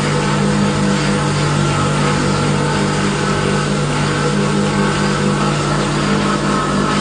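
Steel chain-making machine running steadily: a constant motor hum with a dense metallic rattle over it from the machine and the moving chain.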